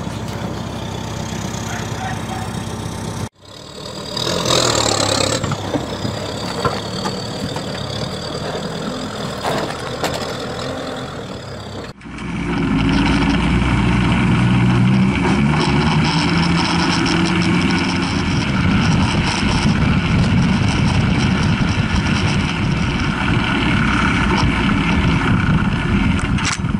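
Sherp all-terrain vehicle's diesel engine, idling at first, then after abrupt cuts running louder under load as the machine drives off, from about twelve seconds in, heard close from a camera mounted on its hull. In between comes a high whine that rises and then holds steady.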